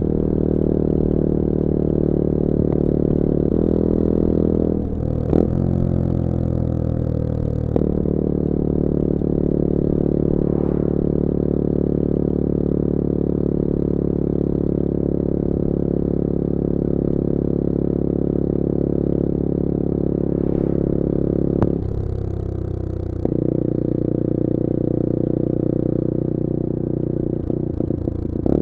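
A 2021 Bullit Hero 250's 250cc four-stroke engine running steadily under way. The engine note dips and drops in pitch around five to eight seconds in and again around twenty-two seconds, each time with a sharp click, and there are a few more clicks near the end.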